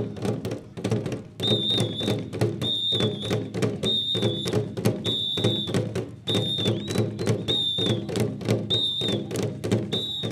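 Drums beaten with sticks in a fast, driving rhythm for a dance, with a shrill whistle blown in short blasts about every second, eight times in all.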